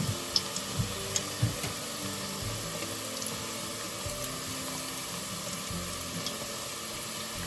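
Hush puppies deep-frying in a pot of vegetable oil, a steady sizzle, with a few light clicks in the first second and a half. The cook says the oil may be a little too hot.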